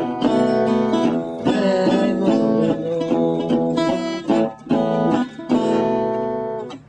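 Country blues picked on a metal-bodied resonator guitar, plucked single notes and chords in a driving rhythm, stopping abruptly near the end as the tune finishes.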